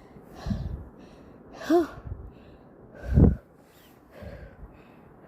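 A person breathing hard and out of breath from climbing a long flight of stairs: four heavy breaths and sighs about a second apart, one with a short voiced 'hm' near two seconds in, the loudest about three seconds in.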